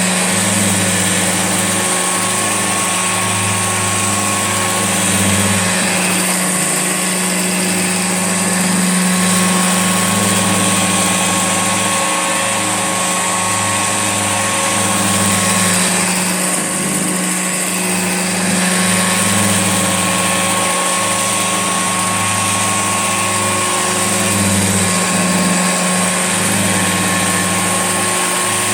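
Old Hoover Junior upright vacuum cleaner running steadily: a motor drone and rush of air, with a lower hum that swells and drops away every few seconds.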